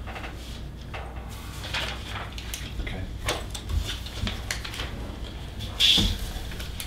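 Papers rustling and being handled at a table, with scattered light taps and clicks and a louder rustle about six seconds in, over a steady low room hum.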